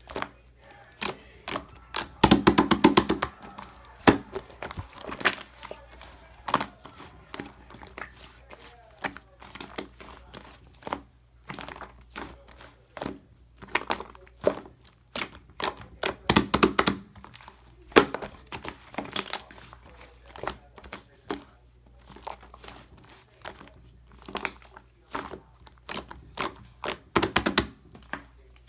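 Close-up crackling, crinkling and clicking, irregular throughout, with denser crunchy runs about two seconds in, around the middle and near the end.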